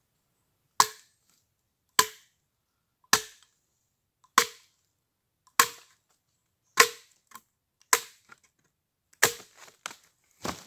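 Machete chopping into a pole of soft jonote wood: about nine sharp, evenly paced chops, a little over one a second, each with a brief ring, with a few lighter knocks between the last ones.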